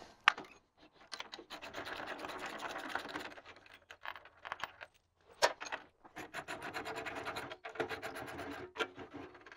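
Socket ratchet clicking in two runs of a couple of seconds each as the hammer mill's lid bolts are loosened, with a few sharp clinks of the steel tools on the mill housing between them.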